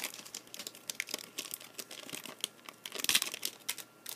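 Trading-card pack wrappers crinkling and cards being handled and shuffled, in a rapid run of small irregular crackles with a louder burst about three seconds in.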